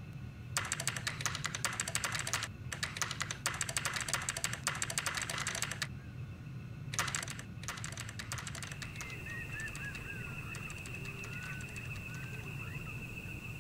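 Computer keyboard typing in fast, dense runs of keystrokes for about five seconds, with a pause and then a shorter burst. After that, typing stops and a steady high tone with scattered short chirps, like small birds, carries on.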